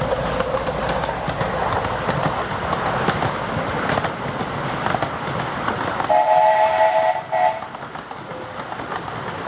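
A miniature 7¼-inch gauge steam train running past, its wheels rattling and clicking over the track, then a loud steam whistle about six seconds in: one blast of several notes together, lasting about a second and a half.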